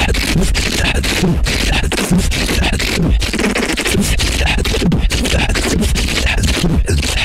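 Beatboxing into a handheld microphone: a fast, dense stream of vocal drum sounds with a steady low bass underneath.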